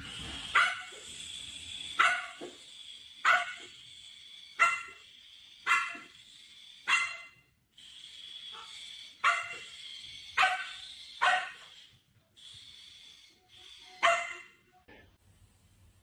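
Small puppy barking in short, sharp barks, about ten of them spaced roughly a second apart.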